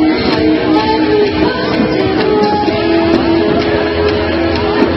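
Loud music with guitar and long held notes. A few faint, short crackles run under it.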